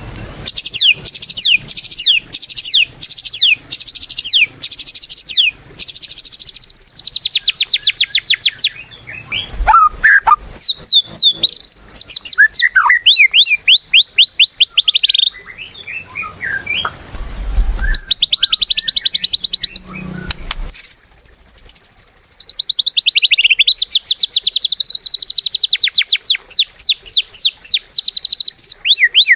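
White-rumped shama (murai batu) in full, vigorous song: long runs of rapid, repeated sweeping whistles and fast trills, broken by a couple of short pauses.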